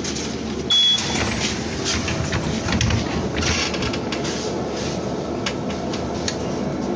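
Steady hum of a BKM-32100D trolleybus, heard from inside the cabin, with a short, loud, high beep about a second in.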